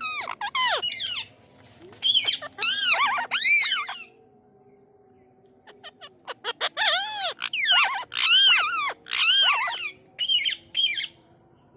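Parrot screeching: a run of loud, harsh calls, each arching up and then down in pitch. There are two bouts with a pause of about two seconds between them.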